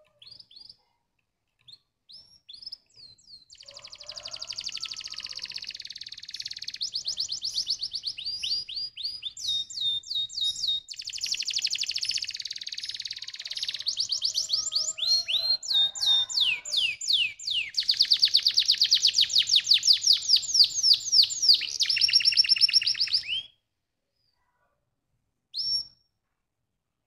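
Domestic canary singing a long song of fast rolling trills and repeated sweeping high notes, building over the first few seconds and loudest near the end of the song. The song stops about three-quarters of the way through, and one short note follows near the end.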